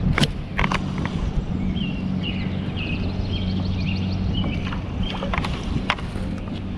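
Steady low hum of a small boat's electric trolling motor. Midway, a bird calls a run of about seven short, evenly spaced high notes, and a few sharp clicks come from the rod and reel.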